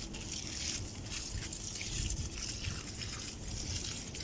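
Water running steadily into the basin around a plant as it is filled during watering.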